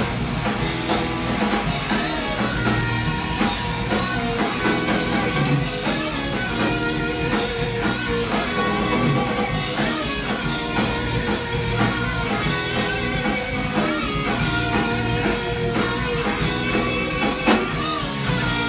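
Live thrash metal band playing: two distorted electric guitars, bass guitar and a Tama drum kit.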